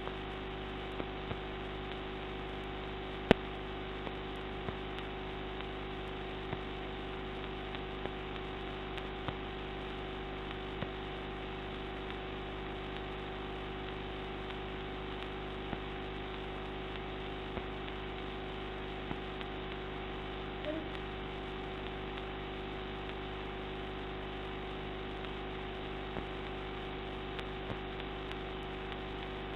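Steady electrical hum with hiss, the recording's own background noise, broken by scattered faint clicks and one sharper click about three seconds in.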